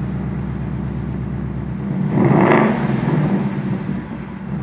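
Ford Mustang Dark Horse's 5.0L Coyote V8 exhaust idling in sport exhaust mode, swelling louder for about a second around two seconds in before settling back to a steady idle.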